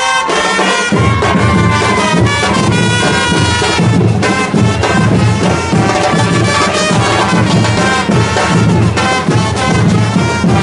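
Live drum-and-brass band playing: large bass drums beat a steady rhythm under trumpets playing a melody. The heavy drum beat comes in about a second in.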